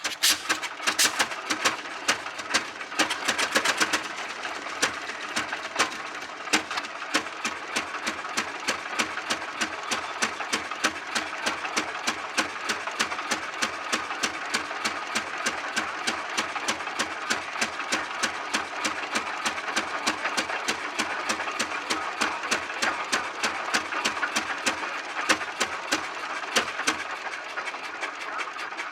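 Victoria oil ploughing engine's horizontal twin-cylinder petrol-paraffin engine running with a rapid, even mechanical clatter. It starts abruptly and is loudest in the first few seconds.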